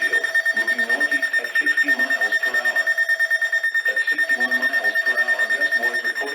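Rapid electronic alarm beeping, many beeps a second, over a steady high tone, with a synthesized voice reading a severe thunderstorm warning underneath.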